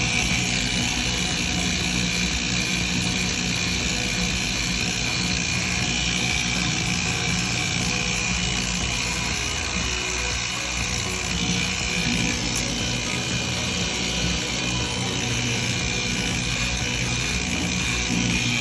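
Handheld electric power tool running steadily, with a constant high whine over a low motor hum.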